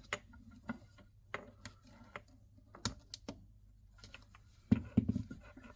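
Irregular small clicks and taps of wires, tools and plastic socket parts being handled during electrical wiring work, with a cluster of louder knocks near the end.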